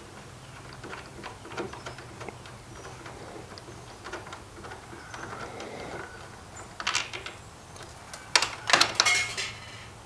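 Small metal clicks and clinks of handlebar clamp hex bolts and washers being handled and lifted out by hand, with a short clatter about seven seconds in and a louder run of clinks a second or so later.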